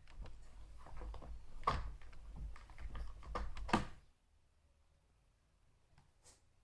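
Small clicks and knocks of the chainsaw's side cover being worked off and handled, with two louder knocks about two seconds and four seconds in, then stopping.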